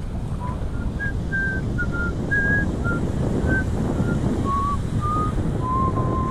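A person whistling a tune in short, clear notes that drift lower in pitch toward the end. Steady wind rumble on the microphone runs underneath.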